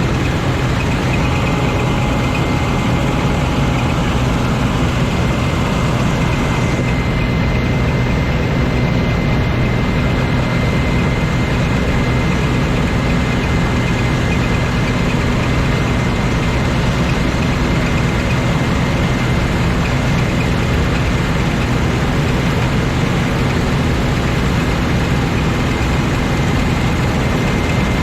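Claas Lexion 420 combine harvester running steadily, its engine and machinery making a loud, even drone with a thin steady whine above it.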